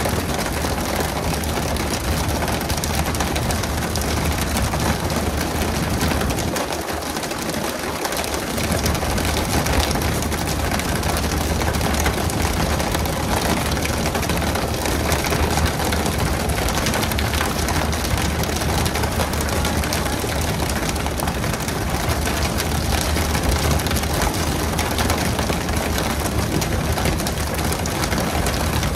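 A boat's engine running steadily under a constant rushing hiss; the low engine hum dips briefly about seven seconds in.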